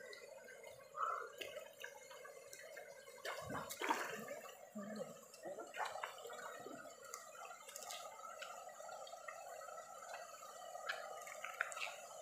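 Water gurgling and lapping in a shallow concrete canal, with a few short sharp clicks.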